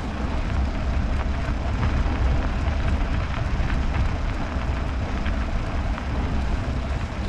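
Steady low rumble of wind on the microphone and tyre noise from a bicycle riding along a snowy road.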